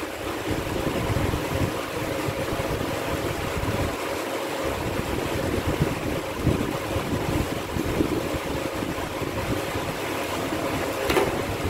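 Steady rumbling background noise with no speech. There is a short click about eleven seconds in.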